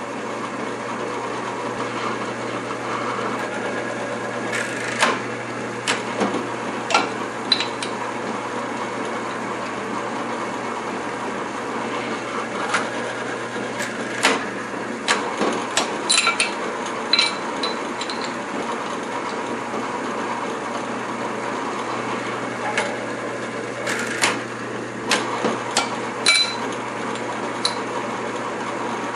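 Drill press with a tapping head running steadily while holes are tapped, with irregular sharp metallic clicks and clinks from the tapping head and the work being moved in the small drill-press vise.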